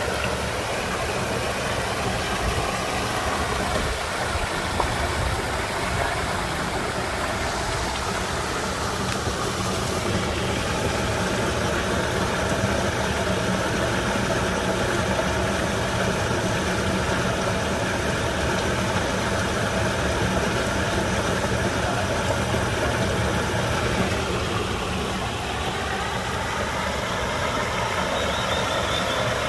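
Waterfall pouring into a pond, a steady rushing and splashing of water with a deep rumble underneath.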